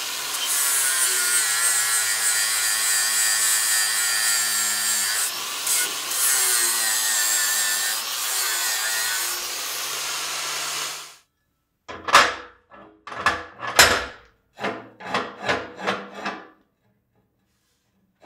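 Angle grinder grinding welds flush on a quarter-inch steel plate, a steady high whine with a hard grinding hiss that stops about eleven seconds in. Then comes a quick run of about eight short, sharp sounds.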